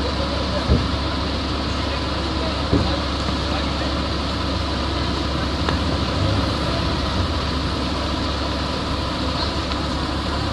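Fire truck engine running steadily, keeping its raised aerial ladder powered, with two short thumps in the first three seconds.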